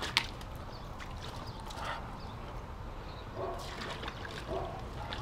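Light splashing and trickling of water in a plastic kiddie pool as a toddler scoops and pours with a small plastic shovel, with one brief sharp sound just after the start.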